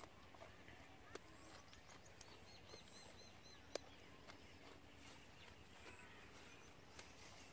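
Near silence: faint outdoor ambience with a short series of faint, high, quick bird chirps a little after two seconds in, and a few scattered soft clicks, the sharpest about halfway through.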